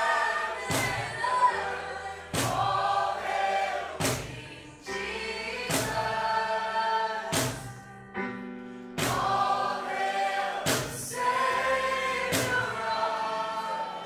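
Worship song: a group of voices singing together over a band, with a sharp drum hit about every second and a half and a brief drop to sparser accompaniment about eight seconds in.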